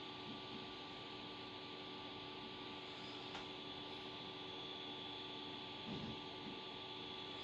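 Steady electrical hum with a faint high whine, and a single faint click about three seconds in.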